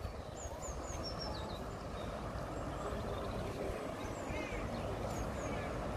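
Steady rushing of the River Severn in flood, fast-flowing brown floodwater, with small birds chirping high above it now and then.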